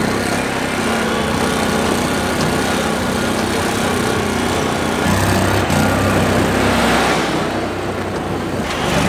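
Argo 8x8 amphibious vehicle's small engine running steadily as it drives along a dirt trail. About five seconds in, the sound turns lower and heavier, with a rush of noise near the end.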